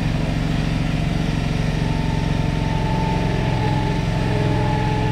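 A machine engine running steadily at a constant speed, with a faint steady whine over it partway through.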